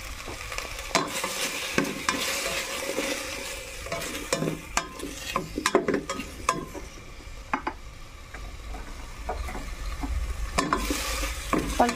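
Tomatoes, onion and garlic sautéing in oil in a thin stainless steel pot over high heat, sizzling steadily. A utensil stirs them, scraping and clicking against the pot many times.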